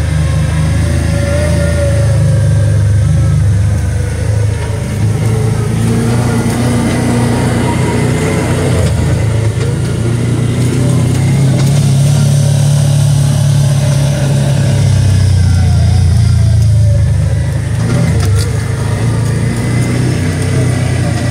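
Side-by-side UTV engine running as it drives over a rough dirt trail, heard from inside the cab. Its pitch rises and falls with the throttle.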